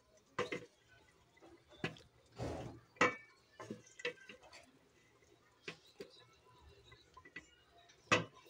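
Serving spoon knocking and scraping against an aluminium cooking pot and a ceramic plate as chicken curry is scooped out: scattered clinks and scrapes with wet drips of gravy, the loudest knocks about three seconds in and near the end.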